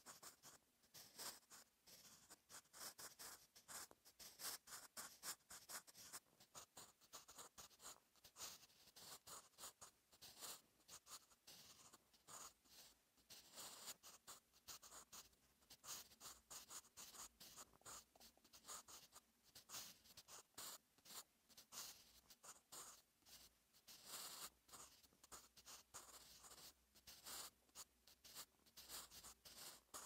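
Staedtler Mars Lumograph Jumbo 8B soft graphite pencil writing on notebook paper: a faint, continuous run of short, quick scratching strokes, irregular in rhythm.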